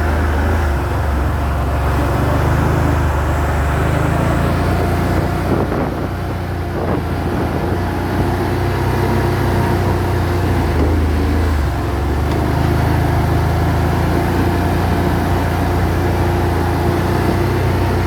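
ATV engine running as the quad is ridden: a steady drone with a strong low rumble, easing off slightly about six seconds in.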